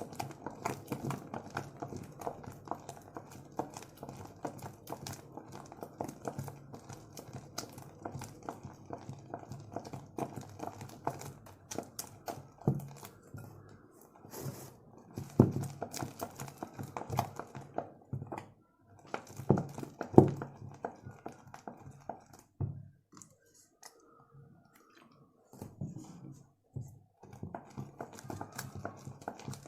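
Fluffy slime made with hand soap being squished and worked by hand: a run of wet clicks and small pops, with a few louder squelches around the middle and a brief lull a little after three quarters of the way through.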